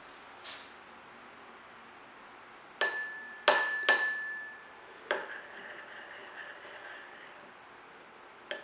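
Glass kitchenware clinking: three sharp strikes in quick succession, a fourth about a second later and a fifth near the end, each ringing briefly with a clear pitch.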